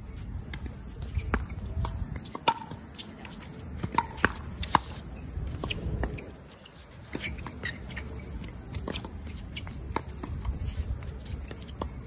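Pickleball paddles striking the hard plastic ball in a rally: a run of sharp pops at irregular spacing, over a low rumble.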